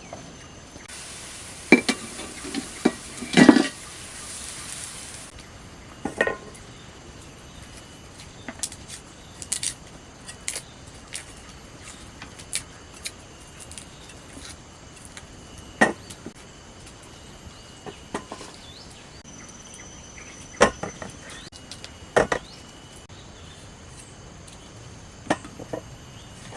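Scattered clinks and knocks of kitchen utensils and cookware. About a second in there is a hiss lasting some four seconds, and insects chirp steadily behind.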